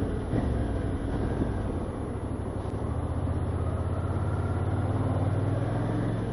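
Motorcycle engine running while riding in town traffic. It gives a steady low hum that grows stronger and more even about halfway through.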